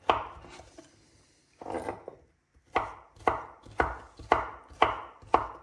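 Kitchen knife chopping bacon into cubes on a wooden cutting board: sharp knocks of the blade hitting the board, about two a second, with a pause of a couple of seconds early on.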